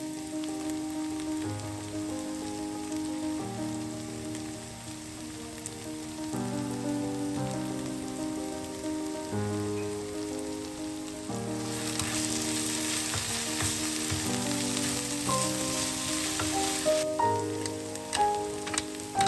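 Food sizzling in a frying pan under background music of held chords that change every second or two. The sizzle grows louder past the middle, and a few sharp knocks come near the end.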